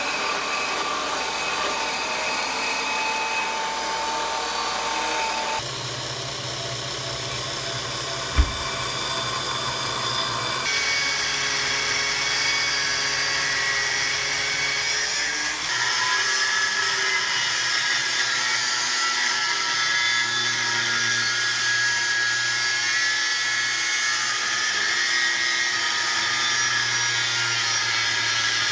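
Abrasive cut-off wheels cutting steel: a chop saw at first, then a hand-held angle grinder cutting 1/8-inch steel plate freehand, the wheel whining steadily against the metal. The tone changes abruptly a few times, and there is one sharp knock about eight seconds in.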